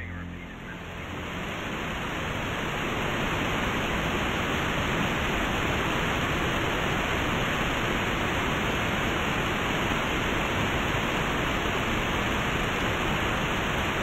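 Waterfall rushing steadily, a constant roar of falling water that swells up over the first few seconds and then holds level.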